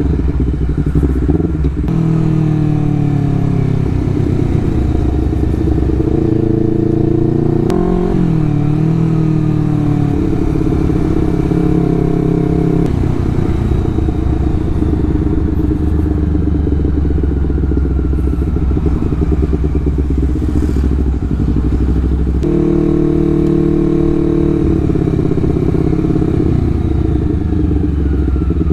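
Honda CBR250RR parallel-twin engine through an aftermarket R9 exhaust, running at low revs with a deep tone. The pitch rises and falls several times as the throttle is opened gently and then closed, the engine braking on deceleration.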